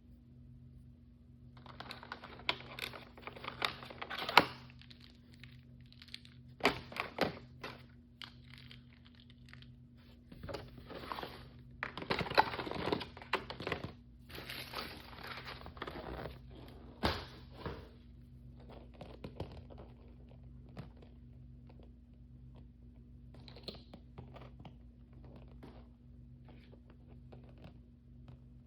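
Blind-bag wrapper being crinkled and torn open by hand, in bursts of rustling with sharp taps and clicks. The handling is busiest through the first two thirds, then thins to occasional soft rustles and taps.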